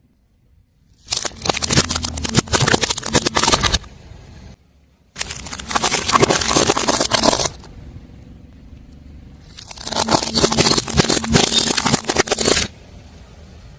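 A car tyre rolling over and crushing crunchy objects: three separate bursts of dense crackling and crunching, each lasting a few seconds.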